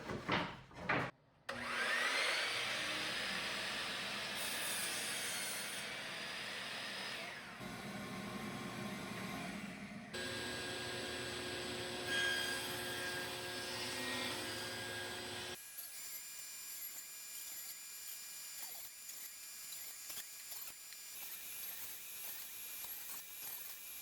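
A power tool working pallet wood: its motor spins up with a rising whine and runs with a noisy cutting sound. The sound changes abruptly about ten seconds in, and drops quieter about fifteen seconds in, leaving a faint steady whine.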